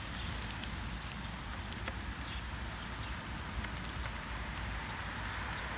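Steady outdoor noise: an even hiss with a low, unsteady rumble and a few faint ticks.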